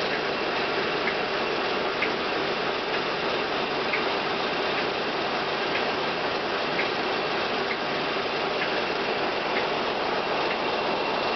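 Diesel locomotive 'Mirrlees Pioneer' running, heard from inside its driving cab as a steady mechanical din, with a faint tick about once a second.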